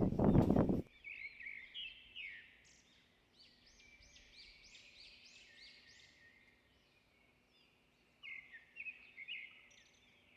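A brief loud noise, then small birds chirping and singing in quick runs of high rising-and-falling notes, faint at first, with a louder flurry of chirps near the end.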